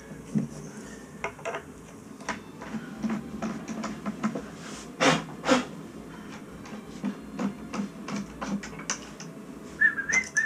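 Small clicks and taps of a screwdriver, screws and hardware being handled against a toilet flange on the floor, irregular, with two louder knocks about halfway through. A brief warbling high tone sounds near the end.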